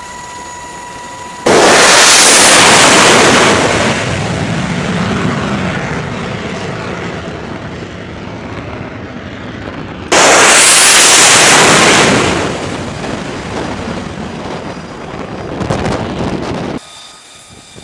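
Jet aircraft launching off a carrier deck. A steady engine whine is cut by two sudden, very loud blasts of jet roar about eight seconds apart, each fading away over several seconds.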